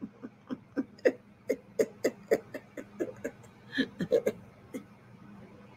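A woman chuckling quietly, a run of short stifled laugh bursts at about three a second that fades out near the end.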